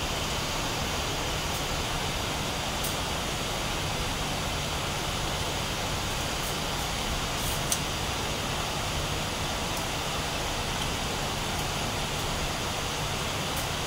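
Steady machinery noise: an even rushing sound over a low hum, with one light click about eight seconds in.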